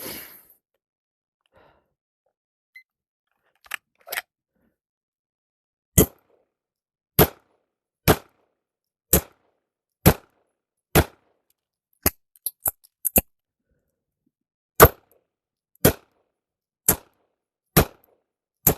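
SIG Sauer P320 X5 pistol firing steady aimed shots, six about a second apart, then a quick run of sharper clacks during the magazine change, then five more shots at the same pace. A few faint clicks come a couple of seconds before the first shot.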